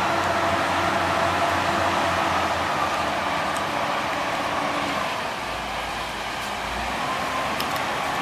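A machine engine running steadily, easing slightly in level about five and a half seconds in.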